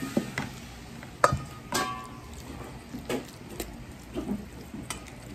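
Metal spoon stirring ground pork and onion in a stainless steel bowl. It knocks and scrapes against the bowl at irregular intervals, and some knocks leave a brief metallic ring.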